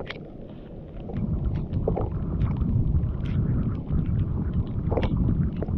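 Wind rumbling on the microphone over choppy water, with small waves slapping and scattered light clicks.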